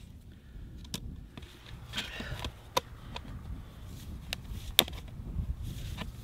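Scattered knocks and clicks of PVC drain pipe and a repair coupling being handled and set into place in a dirt trench, with a short scuffing about two seconds in and one sharper knock about five seconds in.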